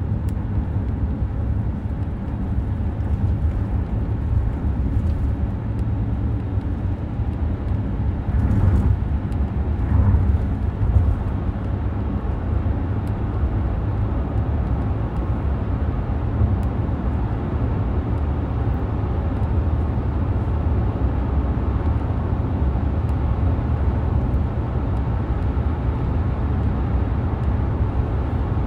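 Steady low rumble of a car on the move, heard from inside the cabin: road and engine noise, swelling briefly about nine to eleven seconds in.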